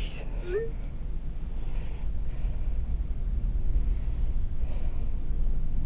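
Low steady rumble that slowly grows louder, with a person breathing faintly over it.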